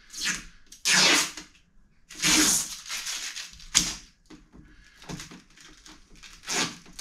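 Hands working at the top of a battery: several short rustling, scraping bursts and a sharp click just under four seconds in.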